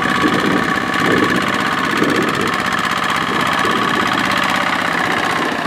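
Kubota single-cylinder diesel engine of a two-wheel walking tractor chugging steadily while it hauls a loaded trailer of rice sacks through deep mud.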